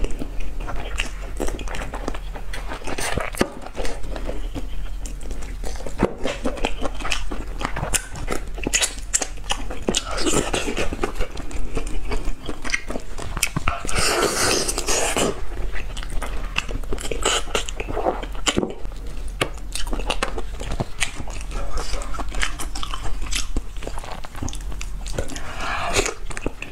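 Close-miked eating of braised soft-shell turtle: biting and chewing, with many short crunchy clicks and a louder noisy stretch of about a second roughly fourteen seconds in, as a piece of the shell edge is bitten.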